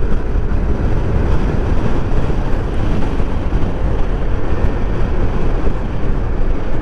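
Steady wind rush on the microphone and road noise of a Yamaha NMAX 155 scooter cruising at about 65 km/h.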